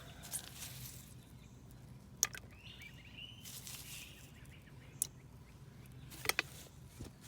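Quiet outdoor ambience at a ditch with a steady low hum, a few sharp ticks (two close together near the end), and faint bird chirps about a third of the way in.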